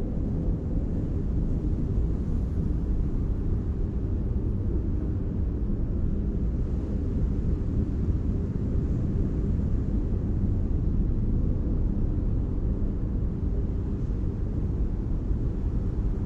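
Deep, steady rumble of ocean surf.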